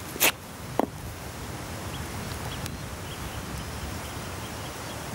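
Two brief scuffs about half a second apart as a person settles onto stone steps, then a steady outdoor background with faint, repeated bird chirps.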